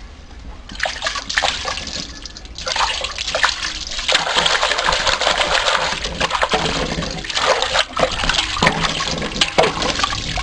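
Water pouring and splashing as quail are washed by hand, with a few short breaks in the first seconds and then steadier.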